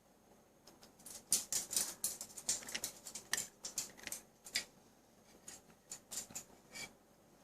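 Eclectus parrot eating, crunching and nibbling food in its beak: a quick, irregular run of sharp crunches and clicks that starts about a second in and thins out toward the end.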